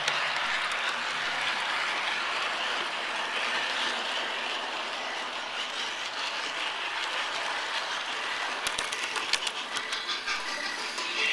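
G scale model train running on garden track: a steady rolling hiss, with a run of rapid clicks in the last few seconds as the wheels pass over rail joints.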